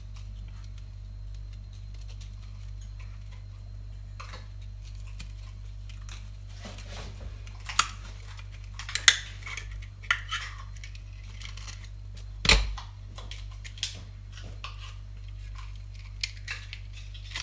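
A knife clicking and scraping against raw oyster shells while they are pried open over a stainless steel sink. Sharp clicks and clinks come at irregular intervals from about seven seconds in, the loudest a knock about twelve and a half seconds in.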